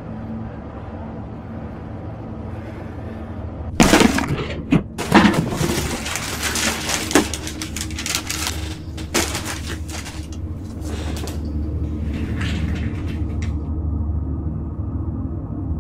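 A low, steady droning rumble. About four seconds in, a sudden run of loud crashing and breaking sounds with sharp cracks lasts until near the end, and then the drone carries on alone.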